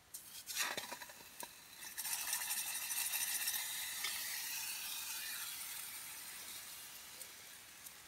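Steak sizzling in a small hot pot on a backpacking stove. A few clicks as the meat and pot are handled, then a hissing sizzle starts about two seconds in and slowly fades.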